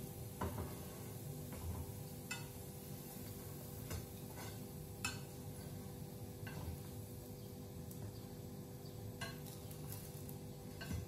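A few light, irregular clinks and clicks of a utensil against a frying pan over a steady low hum.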